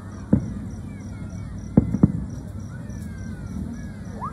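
Aerial fireworks shells bursting at a distance: three sharp booms, one about a third of a second in and two close together near the middle. Faint whistling glides sound between them.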